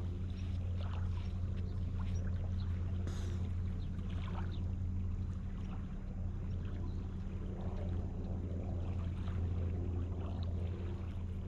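Wind rumbling steadily on the microphone, with small lake waves lapping on the shore and faint scattered ticks.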